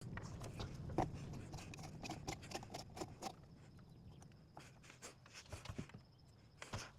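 Scattered light clicks and taps of hands fitting a small ceiling fan onto its ceiling mount, busiest in the first half and thinning out after about four seconds.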